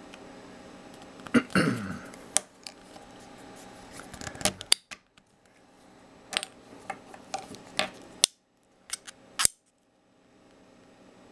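Small neodymium disc magnets and steel balls clicking against each other and against 3D-printed plastic arm connectors as they are handled, fitted and checked for polarity: about a dozen sharp, separate clicks, the loudest about a second and a half in.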